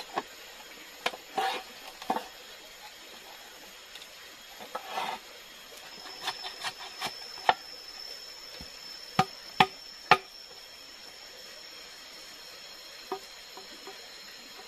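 A bamboo tube being worked by hand with a tool: irregular sharp knocks with a few short scraping rustles, the loudest a quick run of three knocks about two-thirds of the way through.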